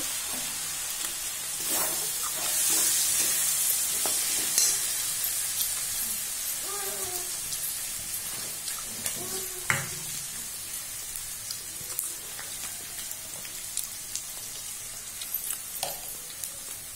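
Onions, garlic and green chilies sizzling in hot oil in a steel kadai, just after soy sauce has gone in. A steel ladle stirs them, clicking against the pan now and then. The sizzle is strongest a couple of seconds in and eases off toward the end.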